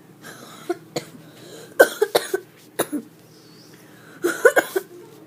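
A person coughing in a fit: one sharp cough about a second in, a quick run of three or four around two seconds, another near three seconds, and a tight cluster of several near the end.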